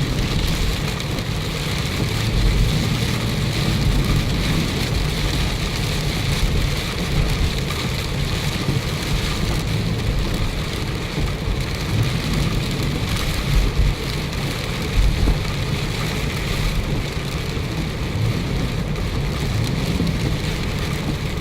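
Heavy rain hammering on a car's roof and windshield, heard from inside the moving car, over a steady low rumble of tyres on the flooded road.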